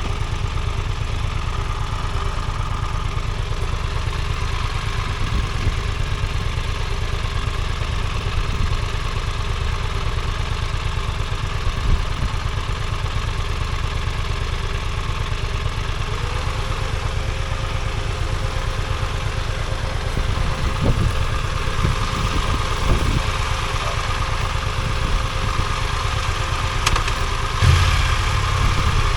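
Motorcycle engine idling steadily, with a few light knocks in the second half.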